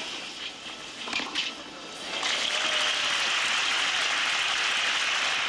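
A few sharp racket hits on a tennis ball in a quick exchange of volleys, then crowd applause breaking out about two seconds in and holding steady.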